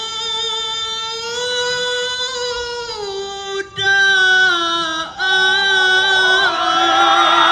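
Dikir barat lead singer singing a long, drawn-out solo line, holding each note with a slow waver while the pitch steps up and then back down in a few stages. Near the end the audience starts cheering and whooping over the held note.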